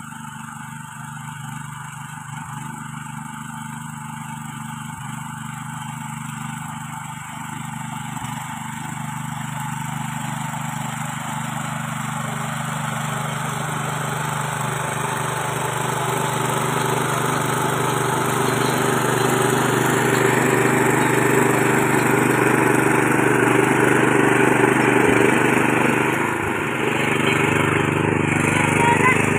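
ProQuip mini cultivator's engine running steadily under load, its tines churning dry, grassy soil. It grows steadily louder as the machine comes closer.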